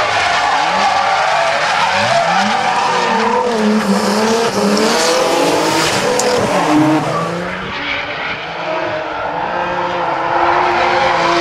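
Two drift cars sliding in tandem: engines revving up and down with the throttle over the screech of tyres spinning and sliding sideways. It dips a little quieter for a couple of seconds past the middle.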